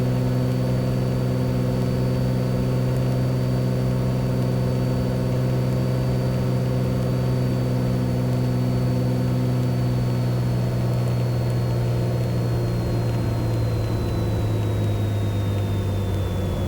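Beechcraft Bonanza's six-cylinder piston engine and propeller droning steadily, with a faint high whine. In the last few seconds the drone and the whine both sink in pitch as power comes back for the landing.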